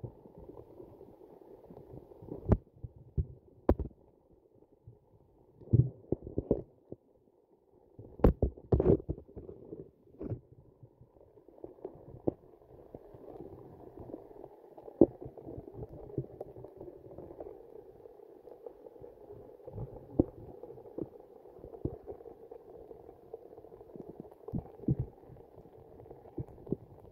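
Muffled underwater sound picked up by a phone held beneath river ice: a steady low rumble of moving water, broken by irregular dull knocks that cluster in the first ten seconds and come more sparsely after.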